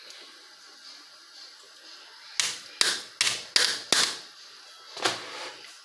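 A plastic colander being knocked to shake chopped vegetables out into a cooking pot: five sharp knocks in quick succession starting about two and a half seconds in, then one more about a second later.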